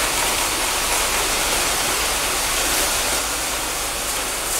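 Steady, dense hiss-like clatter and low hum of a rotary .22 LR cartridge crimping machine running, crimping cases onto bullets and rolling the cannelure knurl.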